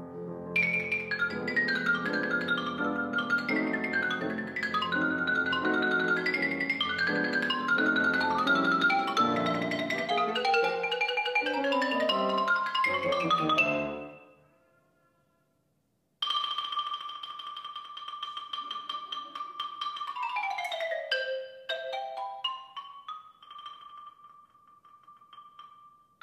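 Xylophone with piano accompaniment playing a fast, busy passage of quick notes that stops about halfway through. After a short pause the xylophone rolls a long high note, runs downward, and rolls on another held note.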